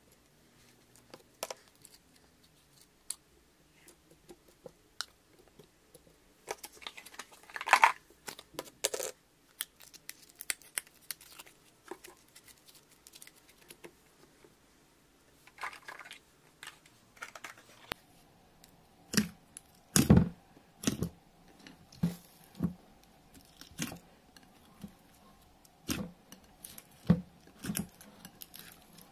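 Slime being scraped from plastic tubs into a glass bowl and then mixed by hand: scattered sticky clicks and crackles at first, then, from about two-thirds of the way in, a run of louder pops as the slime is pressed and folded.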